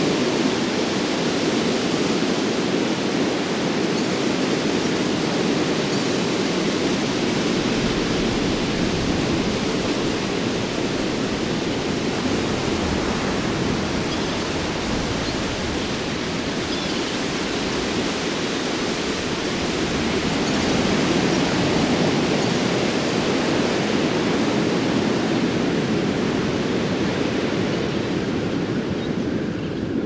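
Waterfall's falling water rushing in a steady, even roar, with no letup.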